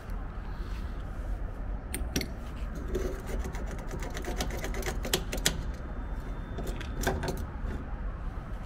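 A metal diesel pump nozzle is handled at a truck's aluminium fuel tank filler neck, giving a run of sharp clicks and knocks, some ringing briefly, from about two seconds in to near the end. A steady low rumble sits underneath.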